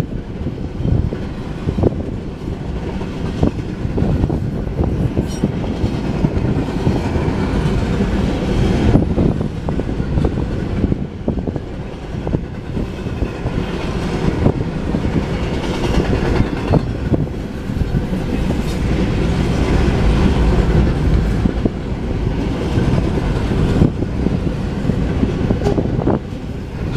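Double-stack intermodal freight cars rolling past at a steady pace: a continuous rumble of steel wheels on rail, with a scatter of clicks and clunks as wheelsets pass over the track.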